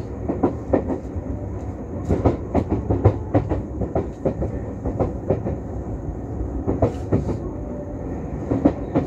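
Electric commuter train running at speed, heard from inside the car: a steady low rumble with the wheels clicking irregularly over rail joints and points.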